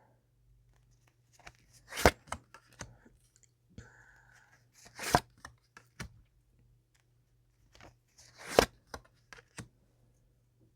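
Tarot cards being handled and laid out: scattered light ticks and slides, with three sharp card snaps about two, five and eight and a half seconds in.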